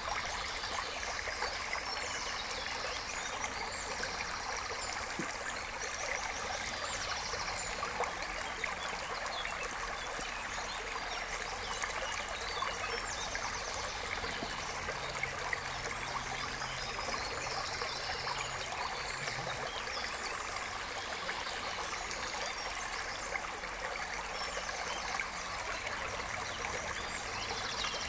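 Brook water running and trickling steadily over stones, with short high bird calls breaking in every few seconds.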